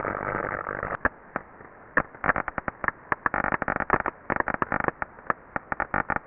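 Heterodyned ultrasound inspection audio: a steady hiss for about the first second, which cuts off abruptly into irregular, sharp crackling pops at random intervals.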